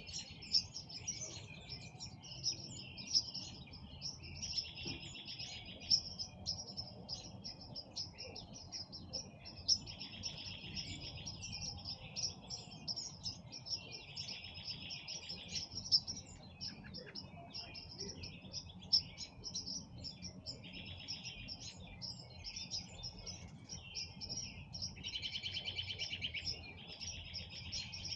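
A chorus of songbirds at dusk, with many high chirps and calls overlapping, and a rapid trill repeating every few seconds; the loudest trill comes near the end.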